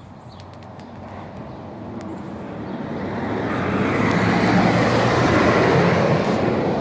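A Freightliner Cascadia semi-truck pulling a flatbed trailer of lumber drives past: its engine and tyre noise build steadily from faint to loud over about four seconds and stay near the peak toward the end.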